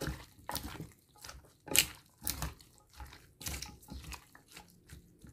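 A hand mixing raw chicken pieces in a soy sauce marinade in a bowl: wet squishing of the meat in short, irregular bursts about twice a second.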